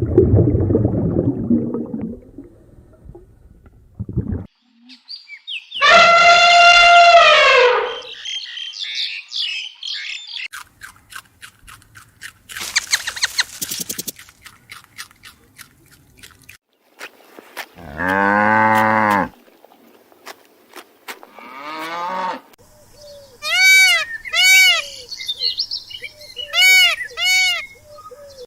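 A series of separate animal calls with pauses between them: a long, high call about six seconds in, a low cow moo around eighteen seconds, and about six short, quick calls near the end.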